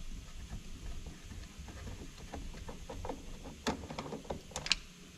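Torx 30 driver undoing a door-mirror bolt in a car door frame, with low handling noise and a few light sharp clicks of metal near the end.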